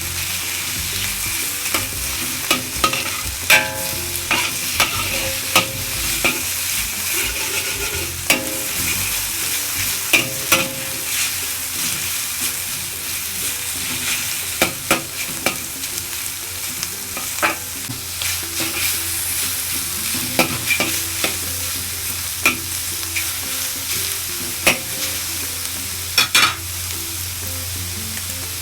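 Food sizzling with a steady hiss as it fries in a pan, stirred with a utensil that clicks and knocks against the pan every second or two.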